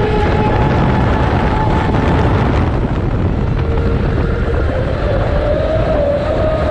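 Brushless electric motor of a Pro Boat Zelos 48 RC catamaran, converted to run on 10S, whining as the boat accelerates away from a standstill, with water and wind rush over the deck-mounted camera. The high whine holds steady, dips slightly past the middle and climbs again near the end.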